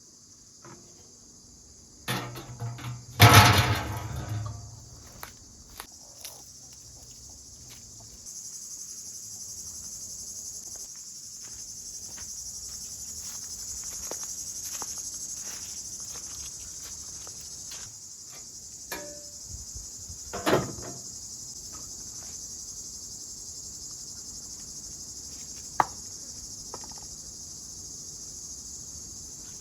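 Crickets chirping steadily in a high continuous drone, with a few sharp knocks and clatters, the loudest cluster about three seconds in and single knocks about twenty and twenty-six seconds in.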